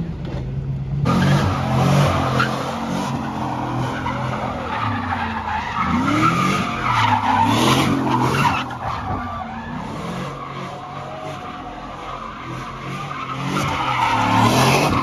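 Chevrolet Silverado pickup doing donuts: tyres screeching hard, with the engine revving up and falling back again and again. The screech starts suddenly about a second in.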